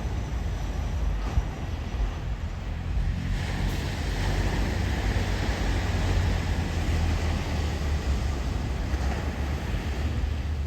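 Ocean waves washing in, a hiss that swells about three seconds in and slowly eases, over a heavy low rumble of wind on the microphone.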